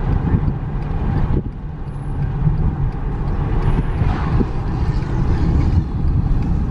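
Road and engine noise heard inside a moving car's cabin: a steady low rumble.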